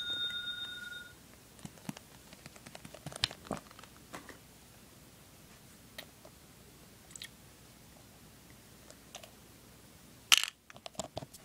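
A small bell's ring fades out in the first second, followed by scattered light clicks and taps of small plastic toys being handled, with a sharper clack near the end.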